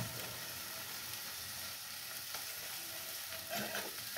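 Food sizzling in a frying pan on a gas stove: a steady hiss.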